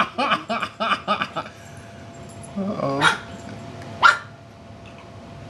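Poodle barking at a parrot: a run of quick yaps, then two sharp single barks about three and four seconds in.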